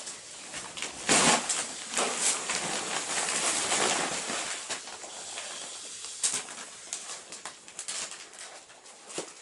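Glossy gift-wrapping paper crinkling and rustling as a present is unwrapped by hand, with a loud burst about a second in and dense crackling for several seconds, then softer, scattered crackles.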